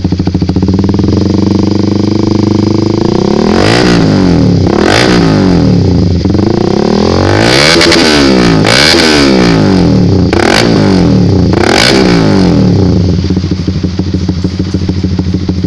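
Honda CBR150R's single-cylinder engine idling through an Akrapovic GP slip-on exhaust with a stainless header. A few seconds in, the engine is revved in about six throttle blips, each rising and falling in pitch, and it settles back to idle near the end.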